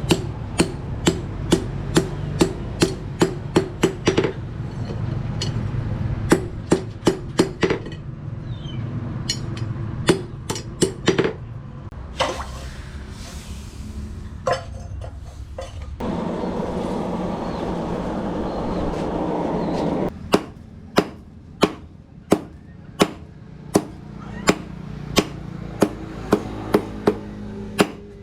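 Blacksmith's hammer striking rebar on an anvil in runs of evenly spaced blows, about two a second, with pauses between runs; a steady hum fills some of the pauses.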